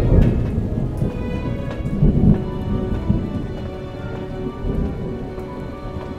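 Rain falling with a low rolling thunder rumble that is loudest early and fades away, over a soft background of sustained music tones.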